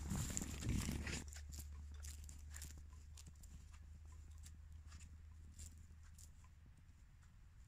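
Footsteps crunching in snow, loudest in about the first second as the walker passes close by, then fainter as they head off.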